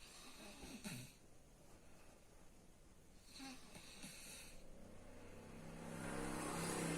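A sleeper snoring: soft, airy breaths at the start and again about three seconds in, then a louder, rattling snore that builds from about five seconds in and is the loudest part.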